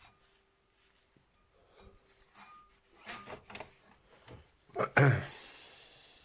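Cloth wiping and rubbing over the record deck's surfaces in short, scattered strokes while cleaning with isopropyl alcohol. About five seconds in comes a sudden loud burst with a voice-like pitch, such as a cough or sneeze, trailing off in a hiss.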